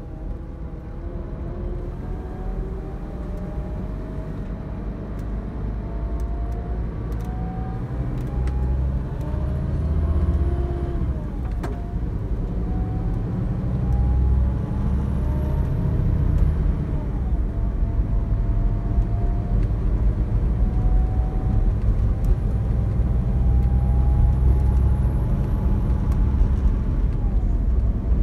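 Scania K360 coach's rear-mounted diesel engine accelerating, heard from inside the passenger saloon, over a steady road rumble. The engine note rises through each gear and drops sharply at gear changes about 12 and 16 seconds in and again near the end.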